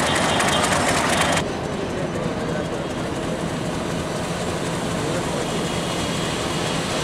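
Diesel locomotive engine running in a rail yard. It is louder for the first second and a half and stops abruptly at a cut, then gives way to a steadier, quieter engine drone as a single locomotive moves slowly over the yard tracks.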